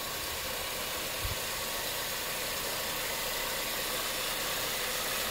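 Acura TSX engine idling steadily with the accessory belt and the freshly resealed power steering pump turning, with no wheezing from the pump. A soft bump is heard about a second in.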